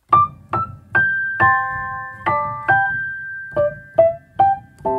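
Solo piano music: a slow line of single notes and chords, each struck and left to fade.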